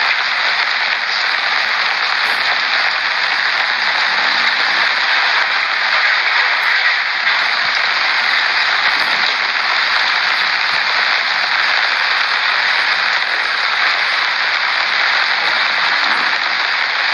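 Steady, loud hiss of heavy rain falling, with no change in level throughout.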